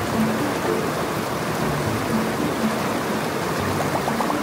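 Steady rushing water of a waterfall and the stream below it.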